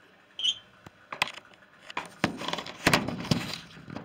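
Handling noise from the camera being wedged into position: a short squeak near the start, a few sharp knocks, then a couple of seconds of scraping and rustling against the microphone with louder knocks in it.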